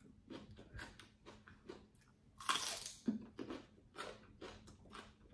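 Close-up eating sounds from a bowl of pho: a string of short chewing and mouth smacks, with one louder half-second slurp about two and a half seconds in.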